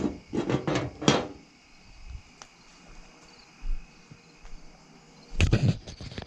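Crickets and other night insects chirping steadily, with loud rustling, scuffing noises in the first second and again near the end.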